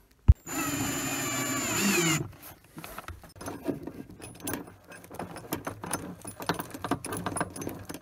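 Small metal clinks and taps of a stainless shackle and turnbuckle being fitted to a fridge's metal handle, the shackle pin being screwed in by hand. They are preceded near the start by a sharp click and about a second and a half of steady whirring.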